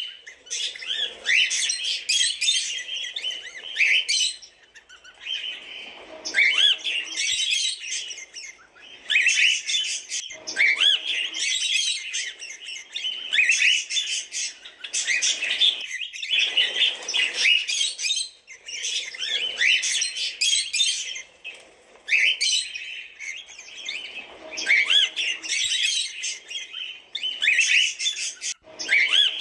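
Cockatiels chirping in repeated bursts of quick rising and falling chirps, a new burst every couple of seconds with short pauses between.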